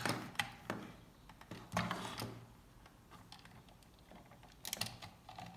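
A small screwdriver clicking and scraping in a screw on a hard plastic Buzz Lightyear figure as the toy is handled: a cluster of light clicks and a short scrape in the first two seconds, a quiet gap, then a few more clicks near the end.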